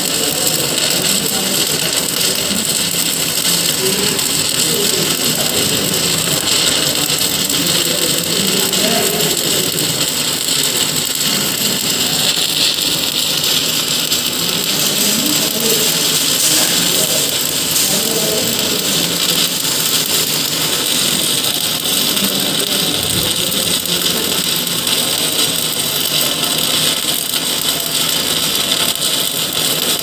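Electric arc welding in progress: a steady, unbroken hiss from the arc.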